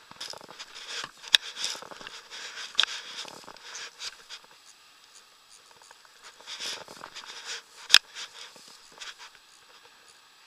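Close rustling and scraping handling noise from someone moving about on a grassy riverbank, with two sharp clicks several seconds apart that are the loudest sounds.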